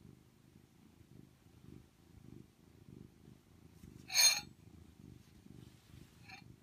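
Domestic cat purring steadily close to the microphone. About four seconds in there is one brief, sharp, louder sound, and a fainter one near the end.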